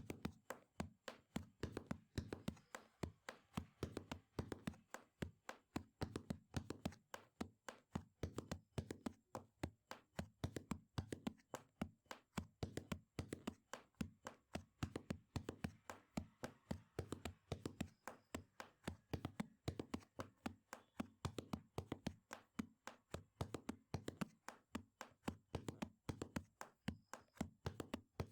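Quick sharp taps and knocks on a hard surface, a few each second in uneven groups.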